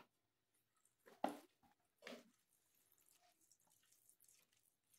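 Fingers mixing rice and food on a plate by hand: faint, soft, sticky squishing, with two short louder sounds about one and two seconds in.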